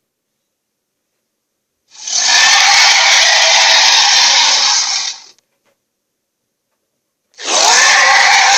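Dragon roar sound effects: a harsh, rasping roar lasting about three seconds, a pause of silence, then a second roar starting near the end.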